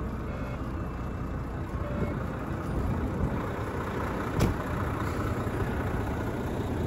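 Volvo semi truck's diesel engine idling steadily soon after a cold start, having sat 50 days in deep cold. A single sharp click about four and a half seconds in.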